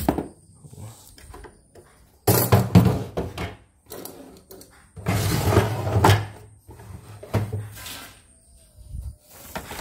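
Three loud bursts of rustling and knocking handling noise, about a second each, some two, five and seven seconds in, as the embroidery machine and its cardboard-and-foam packing are moved about.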